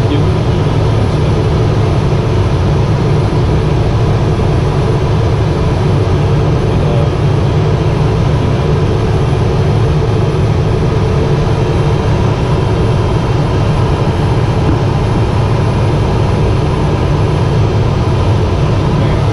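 Cabin noise of a Cessna P210 Silver Eagle's Rolls-Royce turboprop engine and propeller, heard inside the cockpit as a loud, steady, deep drone while the aircraft rolls along the ground. It does not change.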